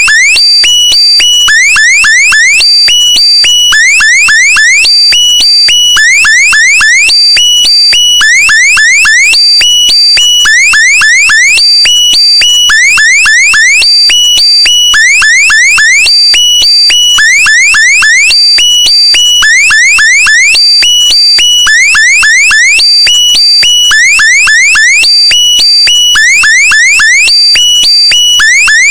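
A loud, looped electronic meme sound effect, alarm-like: quick clusters of rising electronic chirps repeating about every one and a half seconds over steady high tones.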